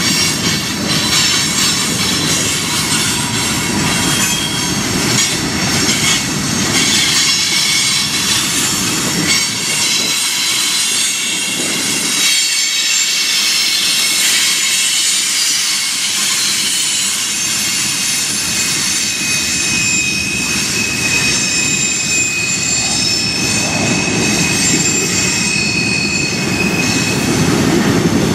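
Freight train of tank cars rolling slowly past with a continuous chorus of high-pitched brake and wheel squeals over the rumble of the wheels on the rails. It sounds like every brake on the train is applied. The squeal tones hold steady and overlap, and the low rumble eases briefly partway through.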